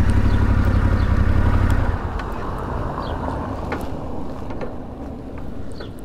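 Parallel-twin adventure motorcycle engine running at low speed as the bike rolls up and stops; about two seconds in its sound drops to a much quieter low rumble. A few short bird chirps come through afterwards.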